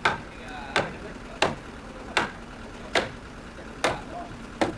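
Steady hammering on timber: seven sharp blows, about one every three-quarters of a second.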